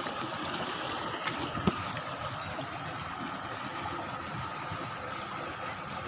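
Steady rush of a stream flowing over rocks, with a couple of light knocks about a second and a half in.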